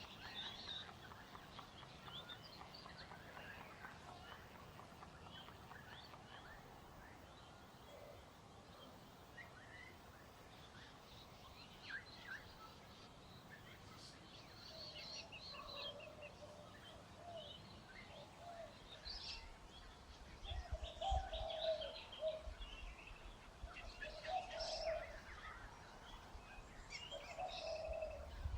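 Birds, likely domestic fowl, chirping and calling softly: scattered short high chirps throughout, with lower calls joining in from about halfway and growing louder near the end.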